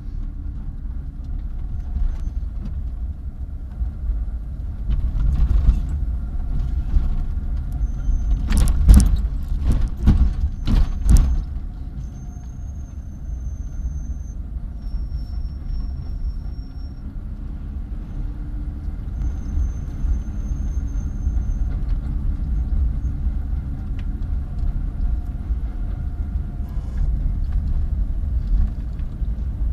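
Car driving along a road, heard from inside the cabin: a steady low engine and road rumble. A cluster of sharp clicks and knocks comes about nine to eleven seconds in.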